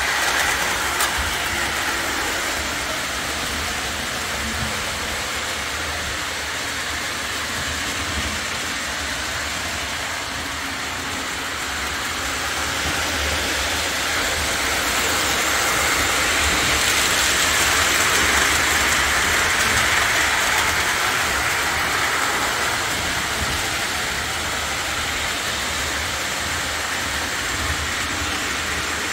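Lionel model trains, including a trolley car, running around the layout: the steady whir of electric motors and wheels on the track, growing louder in the middle and easing off again.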